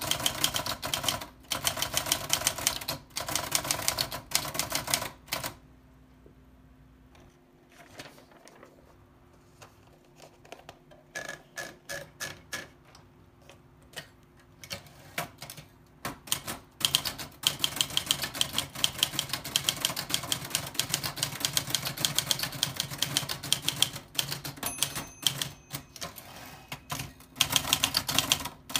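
Old typewriter being typed on: rapid, dense key strikes. A lull of scattered, fainter clicks runs from about five to sixteen seconds in, then fast typing resumes.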